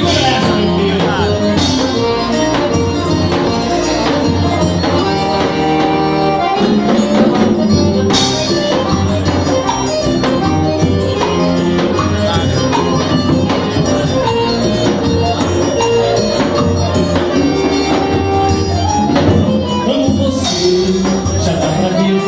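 Live dance-band music, with sustained melody notes over a bass line and a few sharp accents.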